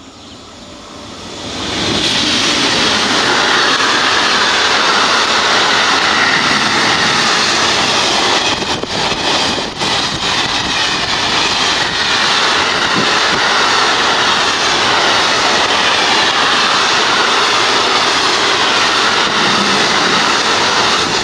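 A freight train of container and tank-container wagons passing close at speed: a loud rush of wheels on rail that comes up sharply about two seconds in and holds steady as the wagons stream by.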